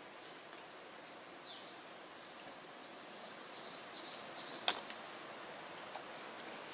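Steady rushing of a fast, swollen river, with a songbird giving a falling call about a second and a half in and a short run of chirps in the middle. A single sharp click, the loudest sound, comes just after the chirps, with a fainter one about a second later.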